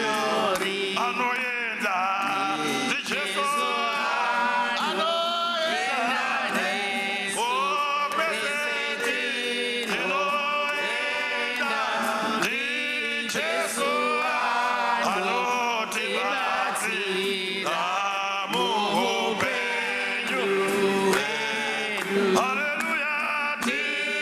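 Worship choir of men and women singing a hymn, with a male voice leading, and hand clapping along.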